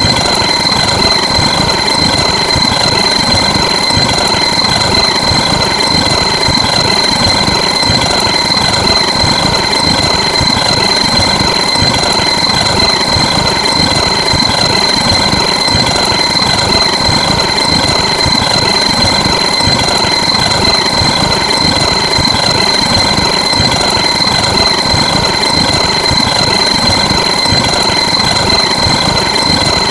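A loud, harsh sound effect that does not change: a constant high-pitched whine over a rough, rapidly fluttering buzz.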